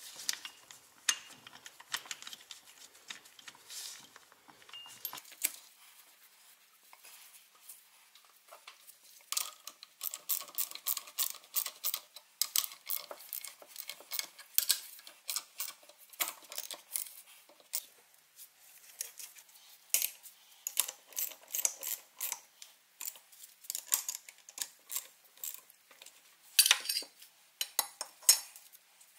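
Hand tools and metal parts clinking and tapping against each other in irregular clusters, with a brief metallic ringing about ten seconds in.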